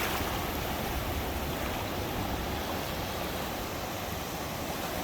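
Small Gulf of Mexico waves washing onto the beach: a steady, even rush of surf.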